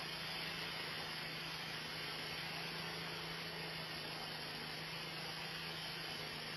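Steady hiss with a low, even hum underneath: room tone picked up by an indoor Nest security camera's microphone.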